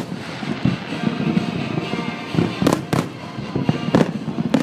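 Aerial fireworks going off, with rumbling for the first couple of seconds, then a run of about five sharp bangs in the second half.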